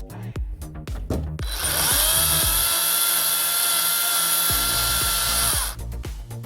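Battery-powered electric chainsaw (Skil 40-volt) running at full speed for about four seconds as a steady high whine, starting about a second and a half in and stopping abruptly near the end. Background music with a beat plays around it.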